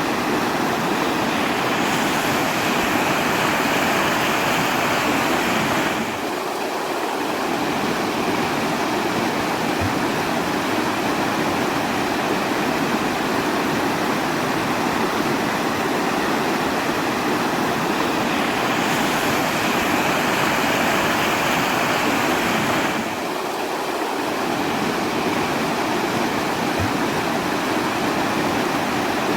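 Rushing water: a steady, dense rush that eases slightly twice, about seventeen seconds apart.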